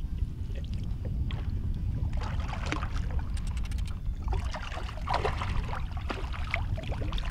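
Water splashing and sloshing at the surface, starting about two seconds in, over a steady low rumble, as a hooked fish is brought up beside the boat.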